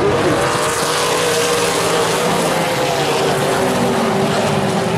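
A pack of Super Late Model stock cars racing around an oval, their V8 engines blending into a loud, steady drone whose pitch wavers slightly as the cars pass.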